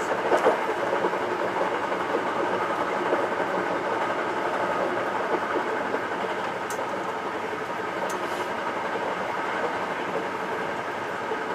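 Hankyu 9300 series electric train running on the line, heard from inside the leading car: a steady rumble of wheels on rail with a few sharp clicks.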